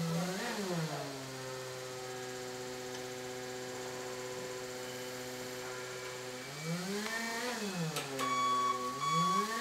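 Electric motor whine from an articulated forklift. It rises in pitch and falls back near the start, holds steady for several seconds, then rises and falls again twice. About eight seconds in, a steady high warning tone comes on and keeps sounding.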